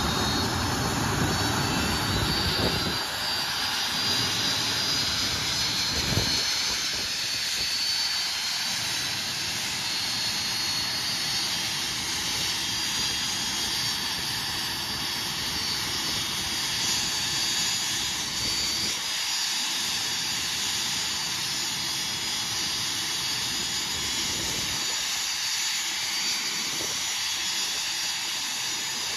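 TS-11 Iskra's single SO-3 turbojet running during an engine test: a steady rushing jet noise with a high whine. The deeper rumble falls away about three seconds in.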